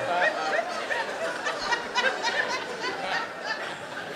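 Audience in a large hall laughing, with many overlapping chuckles that slowly die down.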